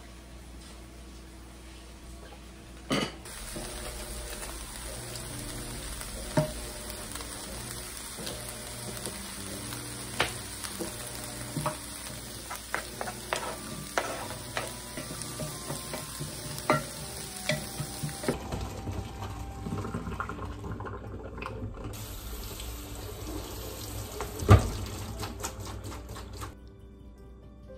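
Cooking in a kitchen: food sizzling in a pan on the stove, with scattered clinks and taps of utensils, pots and a cutting board. Near the end a single loud knock from a dish or colander at the sink.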